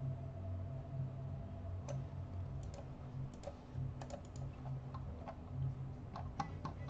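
Scattered computer keyboard and mouse clicks, a few at a time, over a steady low hum.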